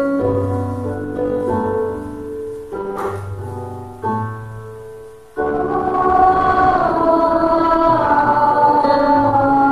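Electronic keyboard playing an introduction alone; about five seconds in, a choir comes in singing with it, louder than the keyboard.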